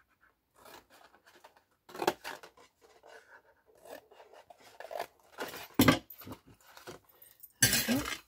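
Scissors snipping small wedges off the flaps of a sheet of thick double-sided patterned paper, with the paper rustling as it is handled. A sharp knock comes about two-thirds of the way in, and a short burst of paper rustle near the end as the sheet is lifted.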